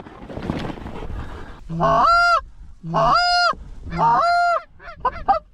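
Canada goose honks: three long two-note honks about a second apart, each breaking from a low note up to a high one, then a quick run of short clucks near the end.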